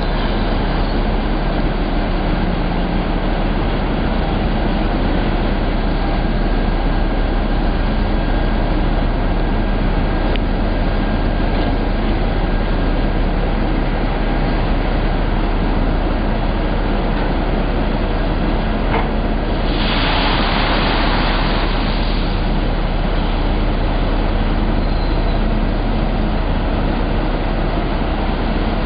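Steady, loud machinery noise of a ship's deck crane working a clamshell grab, with a rush of noise lasting about two seconds, some twenty seconds in, as the grab opens and dumps its load of woodchips.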